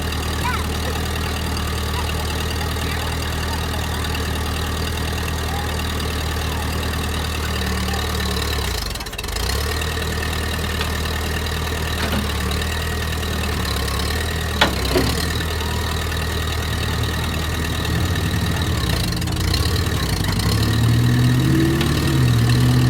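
Vehicle engine idling steadily, briefly dipping about nine seconds in, with a sharp click a few seconds later.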